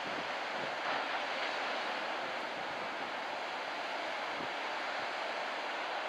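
Ocean surf breaking and washing up a sandy beach, a steady, even rush.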